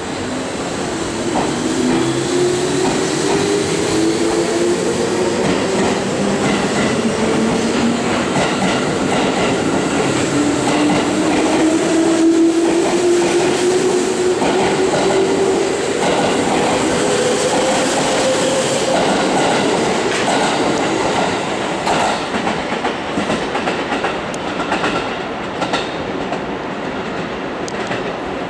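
JR Central 211-series and 313-series electric commuter train pulling out and gathering speed. A motor whine rises steadily in pitch for most of the pass, and the wheels clack over rail joints as the cars go by, the clacks coming more often toward the end.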